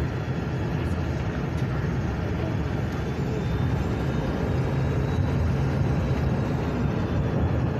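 Ford 7.3 Power Stroke V8 turbodiesel running steadily, with a faint high whistle over the engine note from a boost leak.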